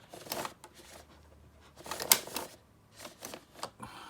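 Shutter setting knob of a Graflex Super D 4x5 reflex camera being turned by hand, three short runs of mechanical clicks as it steps from one setting to the next.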